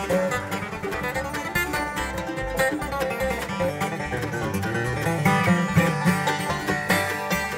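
Live bluegrass band playing, with banjo, mandolin, fiddle, acoustic guitars and upright bass. The banjo is prominent, picking quick rolls over the steady bass.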